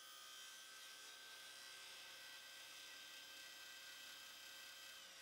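Faint, steady whine of a table saw's motor and blade spinning, heard very low, its pitch starting to fall near the end as the saw begins to wind down.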